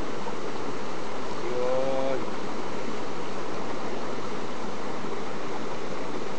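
Steady rushing noise of water, with a brief pitched sound, slightly falling, about a second and a half in.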